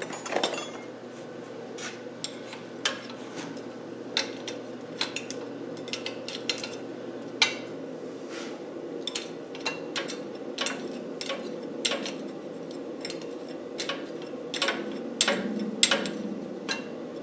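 Metal spanner clinking against a nut and the surrounding steel fittings in short, irregular clicks, one or two a second, as a nut is worked by hand. A steady low hum runs underneath.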